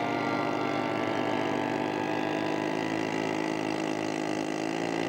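Airplane engine running steadily, a dense buzz of many even tones that dips slightly in pitch near the end.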